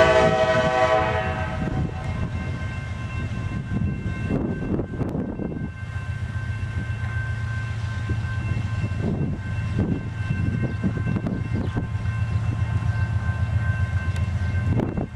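A diesel locomotive's horn blast ending about a second in, then the lead locomotive's diesel engine running with a steady low rumble as the freight train approaches.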